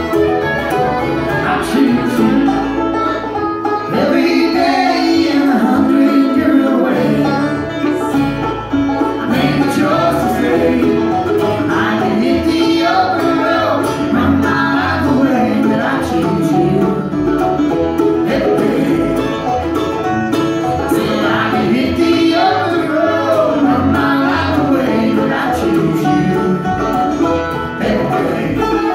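A bluegrass band playing live: banjo, mandolin, fiddle, upright bass and acoustic guitar, with singing.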